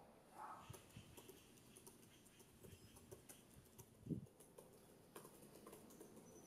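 Faint, irregular clicking of a MacBook Air keyboard being typed on, with one louder low thump about four seconds in.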